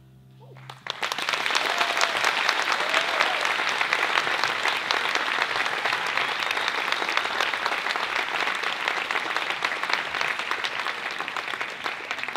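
Audience applauding at the end of a song: the last chord fades out, then dense clapping starts about a second in and holds steady, easing off near the end.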